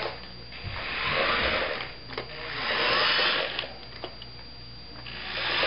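Small electric motors and gears of a remote-control Buzz Lightyear toy whirring in three bursts of about a second each, with short pauses between, as it is driven.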